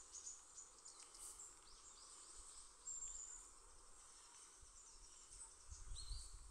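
Faint outdoor ambience: insects chirping steadily, with scattered high, short bird calls. A low rumble rises near the end.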